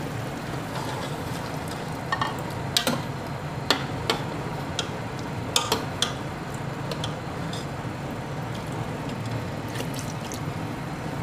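A steel ladle stirring kofta curry in an aluminium pot, clinking sharply against the pot again and again, over a steady low background noise. Water is poured into the curry from a bowl.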